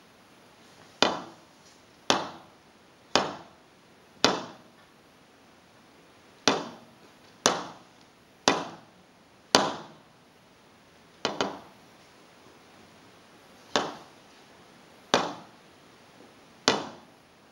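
About a dozen sharp knocks, each ringing out briefly in a bare, echoing room. They come roughly a second apart, with a few longer pauses and one quick double about halfway through.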